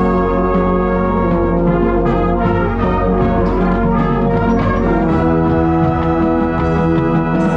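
Marching band brass section playing loud, held chords that change every second or two.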